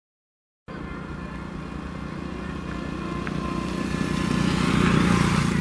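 WAP7 electric locomotive hauling a Rajdhani Express train approaching at speed, its rumble and wheel noise growing steadily louder, with a faint steady whine over it. The sound cuts in suddenly about half a second in.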